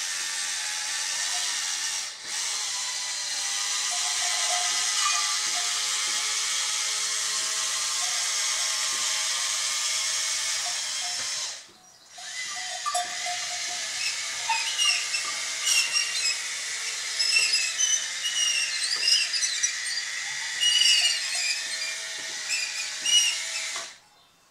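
Electric drive motors and gearboxes of a 1:16 Bruder CAT D11 bulldozer converted to radio control, running with a steady whine and hiss. They stop briefly about two seconds in and again about halfway through. In the second half there are many irregular high squeaks, and the motors cut off just before the end.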